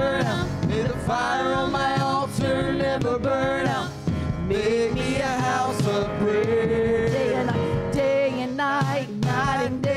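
Live worship song: a woman's voice sings a slow, held melody with vibrato over instrumental accompaniment.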